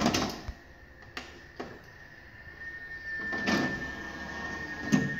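Sharp CMS-R260CD CD player: open/close button clicks and the disc tray motor sliding the tray out, with several clicks and knocks and a steady high whine joining about halfway. The tray will not stay open.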